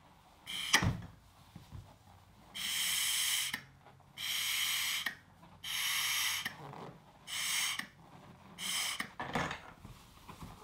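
A 24-inch balloon being blown up by mouth: about five long puffs of air rushing into it, each up to a second long, getting shorter towards the end, with quiet pauses between them for breath. A brief sharp sound comes just under a second in.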